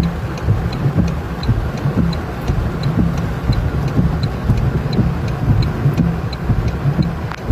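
Low rumble of a vehicle heard from inside, with a turn-signal or hazard indicator clicking steadily about once every 0.7 seconds.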